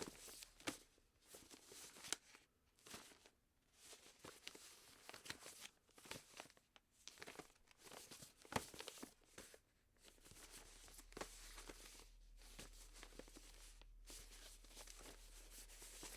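Very faint scattered rustling and clicking, with a steady low hum that comes in about ten seconds in.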